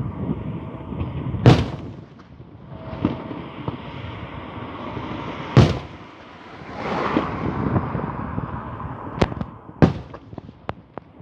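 Fireworks going off: four loud, sharp bangs stand out over a continuous rumble and crackle of further bursts, with a quick run of smaller cracks near the end.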